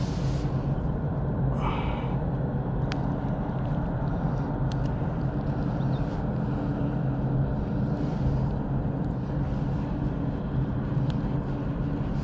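Steady low mechanical drone, like an engine running at a constant speed, with a few faint small clicks from close hand-handling.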